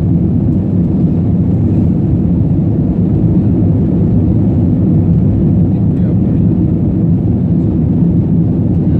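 Steady roar of an Airbus A320-family jet's engines and rushing air heard inside the passenger cabin during the climb after takeoff.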